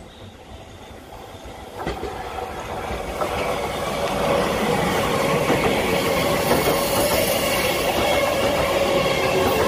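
Seibu 30000 series electric train running in round a curve into the station platform, growing much louder from about two seconds in as it nears and passes. Under the wheel and rail rumble there is a steady whine.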